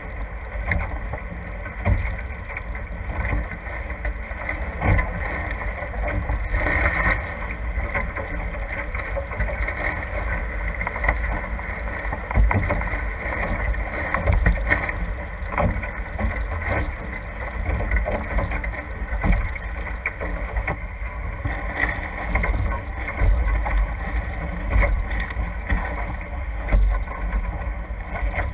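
Water rushing and splashing past the hulls of a NACRA F18 catamaran sailing fast, with wind buffeting the microphone in an uneven rumble.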